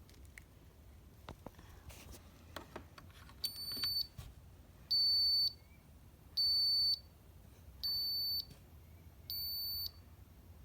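Insulation tester beeping: a single high-pitched beep about half a second long, repeated five times at roughly one-and-a-half-second intervals, beginning about three and a half seconds in, after a few light clicks.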